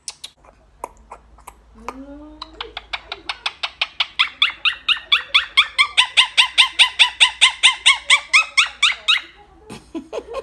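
Blue Quaker parrot (monk parakeet) chattering in a long, fast run of sharp rising chirps, several a second. The run builds up in loudness and breaks off suddenly near the end, after a few lower sliding calls at the start.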